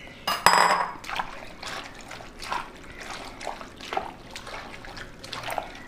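Hand mixing raw chicken, onions and tomatoes with thin coconut milk in an aluminium pressure cooker: short, irregular wet squelches and sloshes. A clink and a brief splash come near the start.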